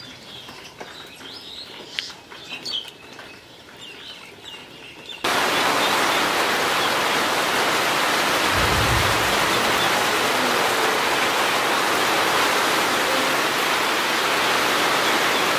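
Birds chirping faintly for about five seconds, then an abrupt switch to loud, steady rain, with a brief low rumble a few seconds into the rain.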